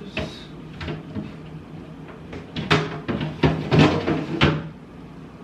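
Kitchen cupboard doors and items being handled: a knock at the start, then a quick run of knocks and clunks between about two and a half and four and a half seconds in.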